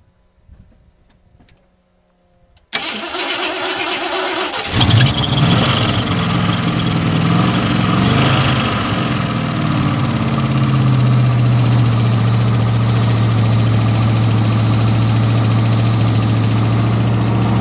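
A 1986 Ford F-150 pickup's engine cold-started: after a few quiet seconds the starter cranks for about two seconds, the engine catches and runs loud, its speed wavering briefly before settling into a steady high cold-start idle.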